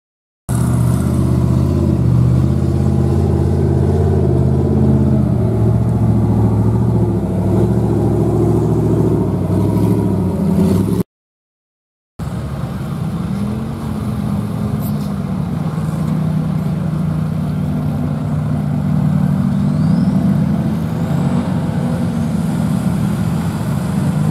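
Mega trucks' engines running and revving as they drive through a grassy mud field, the blue truck's diesel blowing black smoke. The engine pitch rises and falls throughout, and the sound drops out for about a second near the middle.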